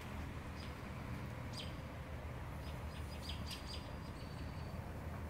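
Small birds chirping with short, high calls, several in a cluster from about a second and a half in, over a steady low outdoor rumble.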